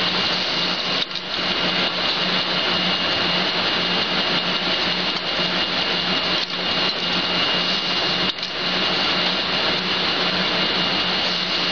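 Steady mechanical noise of napkin-paper production machinery running, with a constant high whine and a low hum underneath. The noise dips briefly three times.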